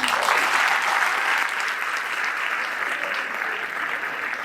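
An audience applauding, a dense steady clapping that starts right as a speech ends and eases slightly toward the end.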